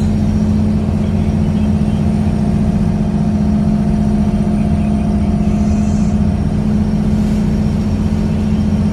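Engine running steadily at constant speed: a loud, even drone with a strong low hum that does not change in pitch.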